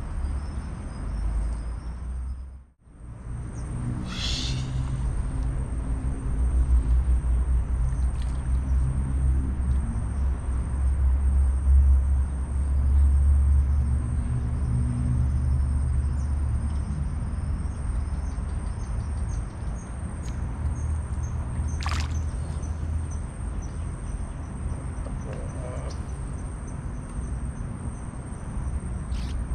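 Wind rumbling on the microphone, a steady low buffeting. The sound drops out for a moment near the start, a brief high falling chirp comes about four seconds in, and a single sharp click about three-quarters of the way through.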